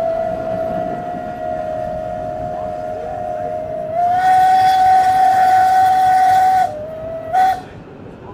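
Steam locomotive's whistle held in one long blast, stepping up in pitch and louder about four seconds in, then cut off and followed by a short toot, over the steady running noise of the train.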